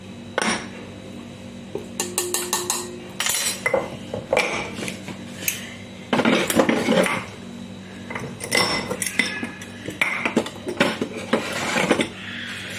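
Spoon clinking and tapping against a glass spice jar and a metal cooking pot in irregular clicks, with a quick run of taps about two seconds in and a longer clatter around six to seven seconds in.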